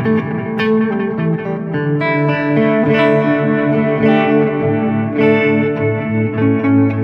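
Electric guitar, a Squier Jazzmaster played through a pedalboard of effects into a Fender Tonemaster Deluxe Reverb amp: picked notes and chords ringing out and overlapping, with the chord changing about every second.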